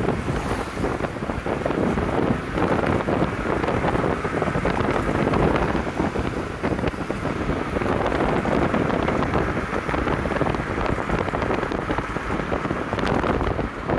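Wind blowing across the microphone, a steady rushing and buffeting noise.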